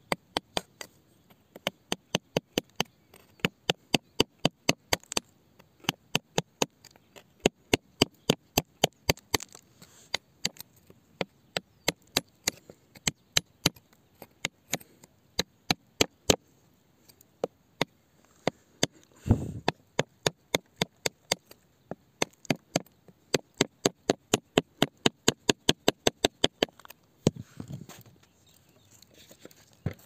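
A metal tool tapping and chipping at rock: many quick, sharp strikes, about two to four a second in runs. There is a short pause, then a duller thump about two-thirds of the way through.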